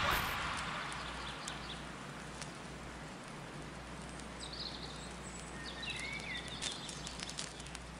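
Music fading out at the start, then a faint steady hiss with a few faint high chirps about halfway through.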